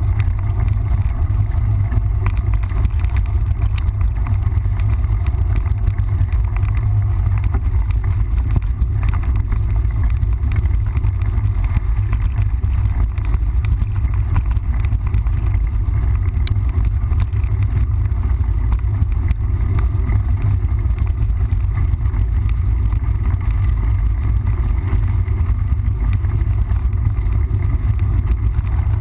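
Mountain bike being ridden on a trail: a steady, loud low rumble of wind on the microphone, with a haze of rolling tyre and trail noise over it.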